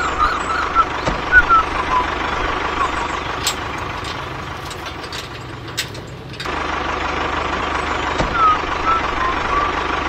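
Truck engine running steadily, with short high chirps over it. The engine drops quieter from about four seconds in, with a few sharp clicks, then comes back up suddenly about two and a half seconds later.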